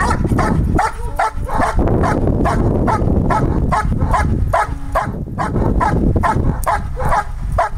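A young German Shepherd barking fast and steadily at a helper in a bark-and-hold guarding exercise, about three barks a second with hardly a break.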